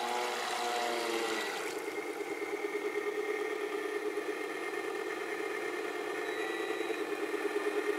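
Simulated engine sound of an Aquacraft Rescue 17 RC fire boat. Its pitch shifts for the first second and a half, then it settles into a steady, rapidly pulsing engine drone.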